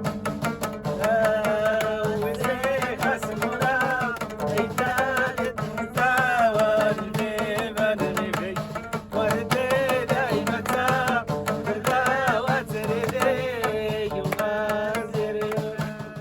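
Music with fast hand-drum percussion under a wavering melodic line played in short phrases over a steady drone.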